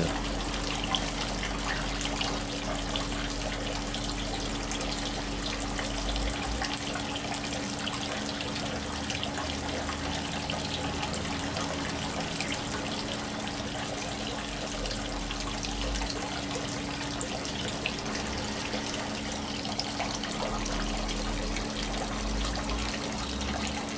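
Water pouring steadily from an inflow pipe into a gravel aquaponics grow bed, filling it up to the level where the bell siphon will trigger. A faint steady low hum runs underneath.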